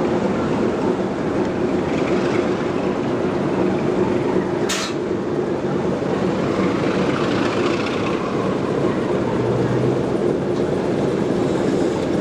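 Schools class 4-4-0 steam locomotive No 926 Repton running with a steady noise. A brief sharp hiss comes about five seconds in.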